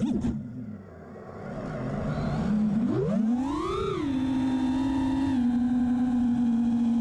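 FPV quadcopter's Schubkraft GT27 brushless motors spinning HQ 5-inch three-blade props, with a sharp click near the start. The whine drops low, then rises and falls as the throttle is punched about three seconds in, and settles into a steady hum.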